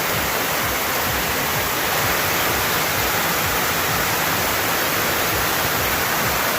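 Steady heavy rain: a continuous, even rushing hiss that neither rises nor falls.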